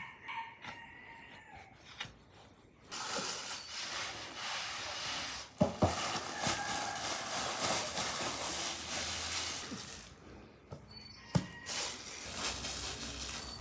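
A clear plastic bag rustling and crinkling as floured dough is handled in it on a wooden board, with a few sharp knocks about six seconds in and again near eleven seconds.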